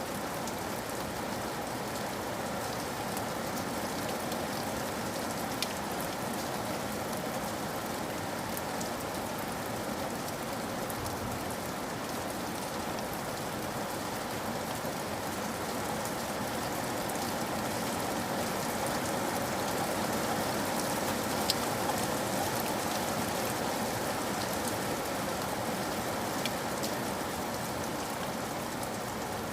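Steady rain falling in a forest, an even hiss of rainfall with scattered individual drops ticking close by.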